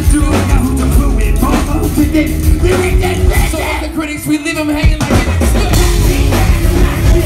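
Rap-rock band playing live, loud drums, bass and guitar under a vocalist singing into a microphone. The bass and drums drop out for about a second near the middle, and the full band comes back in about five seconds in.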